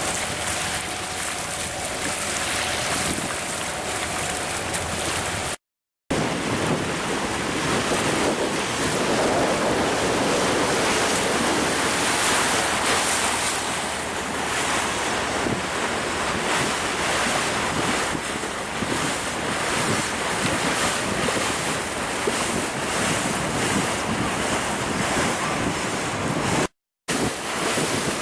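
Wind buffeting the microphone over water rushing past a moving boat: a steady, loud rush of noise. It cuts out to silence twice, about six seconds in and near the end.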